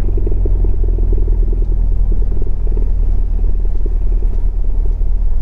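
Cessna Skyhawk's piston engine running steadily at low power as the plane taxis onto the runway to line up for takeoff: an even drone with a deep rumble.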